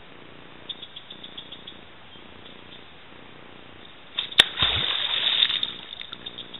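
A beaver diving with a tail slap: one sharp smack on the water about four seconds in, followed by a second and a half of splashing. The slap is the beaver's alarm signal.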